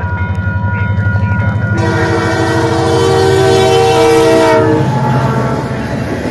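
Diesel locomotive horn sounding one long blast of several notes together, about three seconds long, starting about two seconds in, over the steady low throb of the locomotive's diesel engine as the train pulls away.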